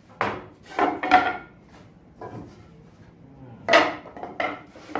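Loose pine boards being set down and slid into place on a steel-tube welding table: a series of wooden knocks and clatters, six or so in five seconds, a few with a brief ring.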